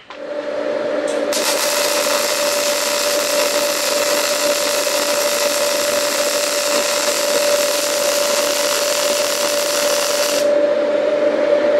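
Electric welding arc burning steadily for about nine seconds as a continuous hiss, then cutting off sharply. A steady hum starts just before the arc strikes and runs on for a couple of seconds after it stops.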